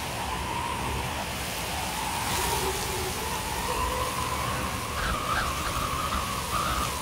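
Strong wind driving snow across open ground: a steady rushing hiss with a wavering, whistling howl that grows stronger about five seconds in.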